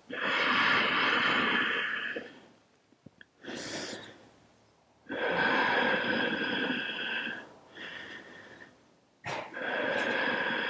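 A woman's slow, deep, audible breathing: three long, loud breaths of about two seconds each, a few seconds apart, with fainter, shorter breaths between them.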